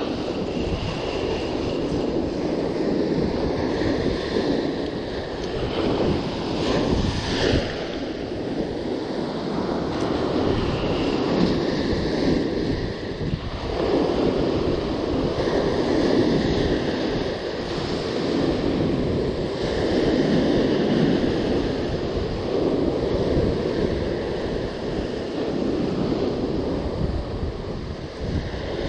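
Sea surf breaking and washing up a sandy beach in repeated swells, with wind buffeting the microphone.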